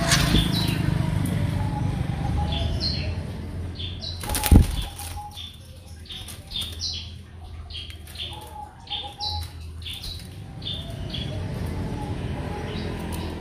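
Small birds chirping in short, high, repeated notes over a steady low rumble, with one sharp knock about four and a half seconds in.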